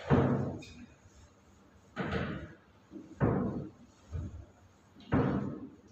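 Whiteboard duster wiped across a whiteboard in about five separate strokes, each a short scrubbing rush that starts sharply and fades within half a second, roughly a second apart.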